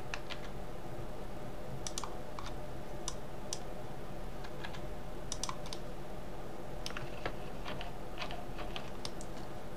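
Computer keyboard keys and mouse buttons clicking, scattered irregular single clicks as Blender shortcuts are pressed, over a steady low electrical hum.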